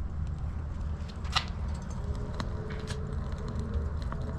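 Fire catching under a chimney starter full of lump charcoal: a low steady rumble with a few faint crackles, the sharpest pop about a second and a half in.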